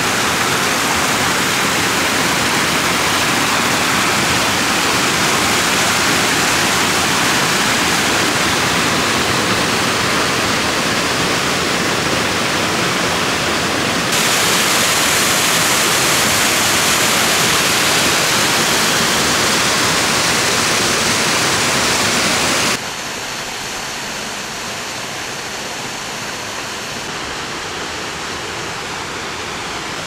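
Waterfall, a steady rush of falling water. It turns abruptly brighter and louder about halfway through, then drops suddenly to a quieter rush about three quarters of the way in.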